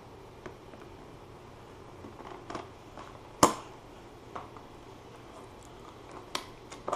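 Scissors and hands working at the plastic shrink wrap on a cardboard box: scattered sharp snips and clicks, the loudest about three and a half seconds in.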